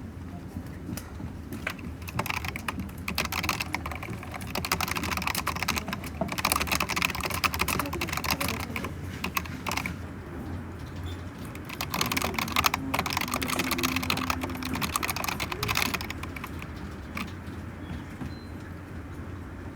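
Typing on a computer keyboard: rapid key clicks in two busy spells with a short lull between them, thinning out near the end, over a low steady hum.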